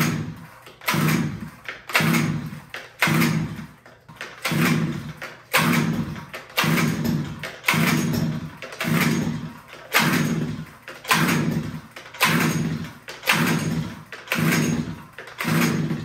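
Two-stroke ice auger engine being pull-started on its recoil starter, about one pull a second, some sixteen pulls, each a rasp of the cord and the engine cranking over without catching. It is on full choke and will not start, which the owner traces to a fuel mixture that is too rich.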